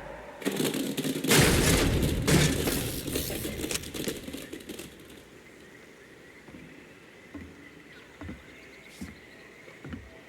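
A burst of loud crashing and banging for about four seconds that dies away, then a few soft low thumps spaced about a second apart near the end.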